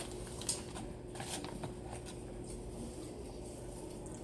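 Quiet background with a steady low hum and a few faint clicks in the first couple of seconds.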